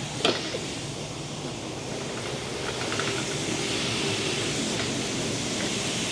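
Steady hiss of soybeans pouring out of a grain bin, with a faint motor hum underneath and a single click just after the start.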